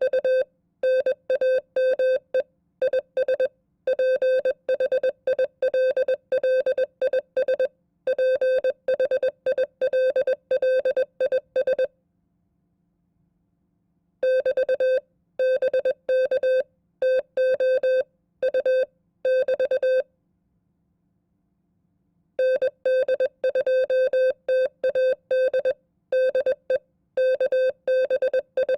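Morse code (CW) sent at 20 words per minute: a single steady tone keyed on and off in dots and dashes, spelling out a sample amateur-radio contact. It stops for about two seconds twice, about twelve and twenty seconds in.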